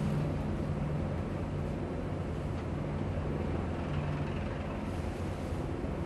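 CH-53 heavy-lift helicopter turning its rotors on deck, its engines and rotor giving a steady low rumble that holds even throughout.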